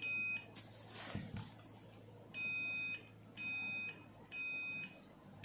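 Digital multimeter continuity beeper sounding four short, steady high-pitched beeps of about half a second each as the probes are stepped across commutator segments of a DC motor armature. Each beep marks a low-resistance connection between the probed segments.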